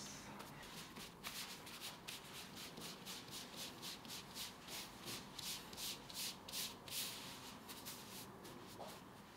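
Hands rubbing and smoothing gathered, pleated sheets of thin baklava phyllo dough flat on a floured stone worktop: a quick run of dry brushing strokes, about three a second, between about one and seven and a half seconds in.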